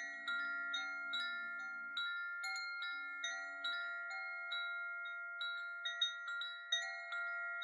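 Soft meditation music of bell-like chime notes struck about twice a second, each ringing on and overlapping the next.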